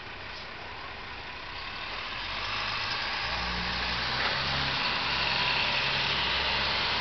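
Cummins ISLe 290 hp six-cylinder turbodiesel of a Yutong ZK6118HGA city bus pulling away, growing louder about two seconds in, with a turbo whine joining in the second half.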